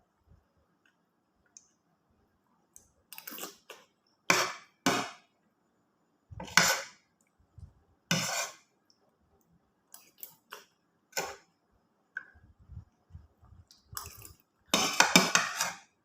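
Spoon scraping and clinking against a plate during a meal, in short separate strokes a second or two apart, with a longer scrape near the end.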